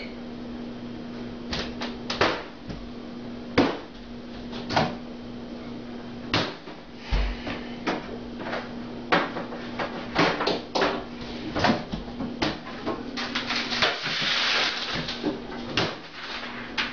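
A microwave oven running with a steady hum, a microwave its owners say won't cook anything, while sharp knocks and clatters come every second or two. The hum cuts off near the end, and more knocking and clattering follow.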